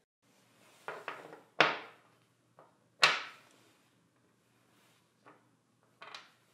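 Several knocks and clunks of hard parts or tools being handled, two of them loud and sharp with a brief ring-out.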